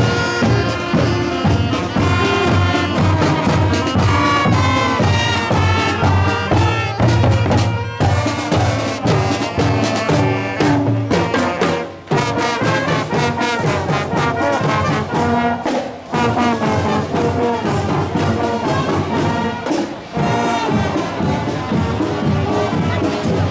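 Marching band playing: saxophones, trumpets and trombones carry a tune over heavy bass drum beats. The sound dips briefly a few times.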